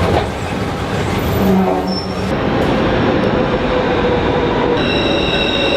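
Subway train running with a steady rumble and rattle. Near the end its wheels start a high, steady squeal.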